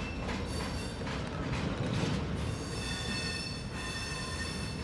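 Double-stack intermodal freight cars rolling slowly past with a low rumble and a few knocks. About halfway through, a high wheel squeal with several steady pitches sets in.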